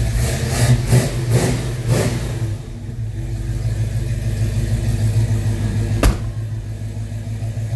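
1969 Ford Mustang Mach 1's 351 cubic inch V8 idling after a fresh start, blipped a few times in the first two seconds before settling back to a steady idle. A single sharp clack about six seconds in as the car door is shut.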